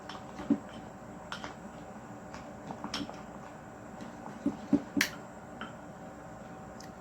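A spatula stirring slime in a container, making irregular clicks and taps as it knocks against the container; the sharpest tap comes about five seconds in.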